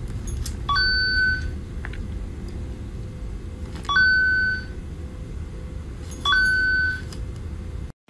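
Three short electronic beeps, each starting with a click and holding one steady high pitch for under a second, about two and a half to three seconds apart, over a steady low rumble.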